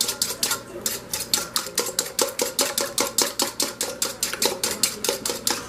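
A fork or similar utensil striking a mixing bowl in a fast, even rhythm of about six clinks a second, as ingredients are mashed up in the bowl.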